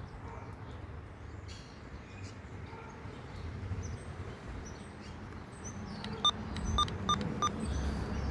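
Four short electronic beeps from a weather radio's keypad as its buttons are pressed to change channel, about six seconds in, over a steady low background rumble.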